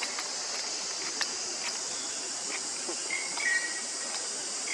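Steady, high-pitched insect chorus. A few faint clicks, and a brief chirping call about three seconds in.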